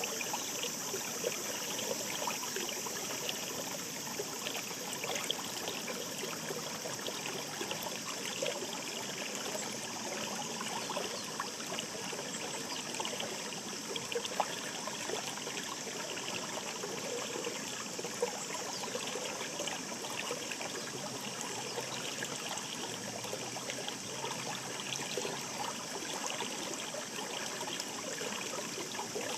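Babbling shallow stream, the Katsuragawa in Kyoto's Kitayama mountains, running steadily with many small trickles and splashes.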